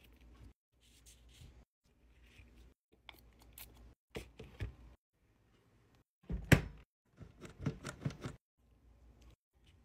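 Small cosmetic items and their packaging being handled and set down in a drawer: light taps, rustles and clicks in short bursts, with one sharp click about six and a half seconds in.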